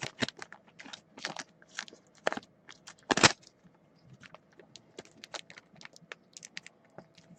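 Trading cards and their plastic sleeves and holders being handled and shuffled: scattered light clicks and rustles, with one louder rustle about three seconds in.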